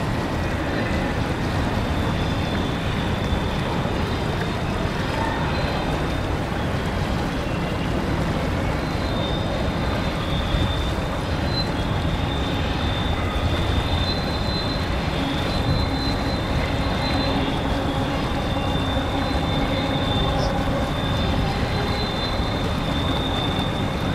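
Long double-stack container freight train rolling across a steel trestle bridge: a steady, heavy rumble of wheels on rail, with a thin high-pitched squeal that comes and goes over it.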